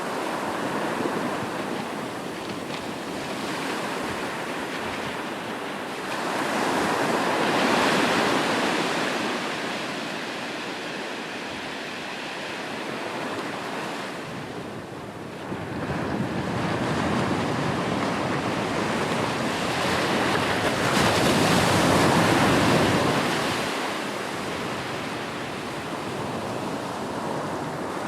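Ocean waves washing onto the shore: a steady rush of surf that swells twice, the second and louder surge coming about three-quarters of the way through.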